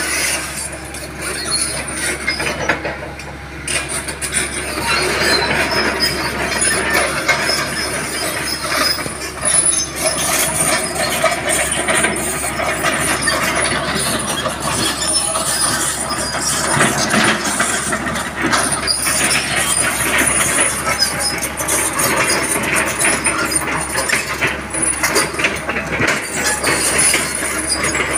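Hitachi crawler excavator travelling on its steel tracks: the diesel engine running under load with the track links clanking irregularly.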